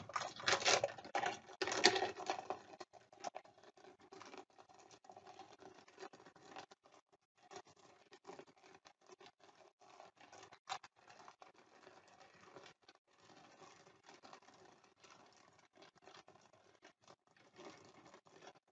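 A plastic bag of milk chocolate chips crinkling as it is handled and opened, then quiet scattered pattering and rustling as the chips are poured and spread by hand over a layer of marshmallows in a baking pan.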